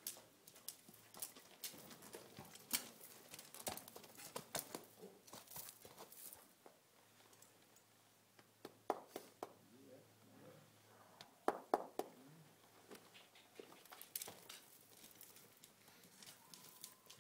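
Faint, irregular clicks and soft thuds of a young horse being ridden on soft arena dirt: hoof falls and saddle tack.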